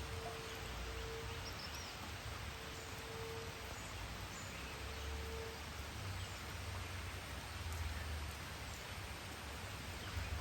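Outdoor ambience by a pond: a steady hiss with a low rumble underneath, and three long, steady tones at the same pitch, each about a second long, in the first half, with a few faint high chirps.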